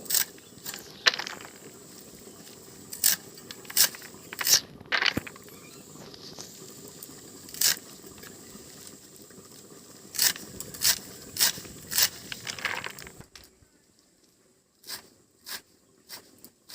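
Leafy greens being cut and trimmed: irregular crisp cutting and snapping strokes, some in quick runs, over a low steady hiss that stops about three-quarters of the way through.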